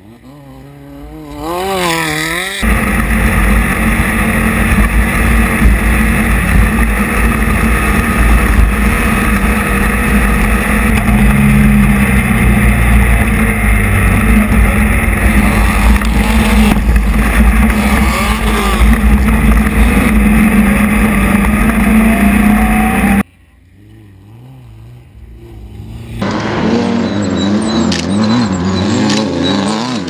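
Off-road race buggy engines revving as buggies drive through the desert course. The engine pitch wavers up and down at first, then gives way to a loud, steady, heavy rumble for about twenty seconds that cuts off suddenly. After a short quieter spell, an engine revs again with sharp ticks near the end.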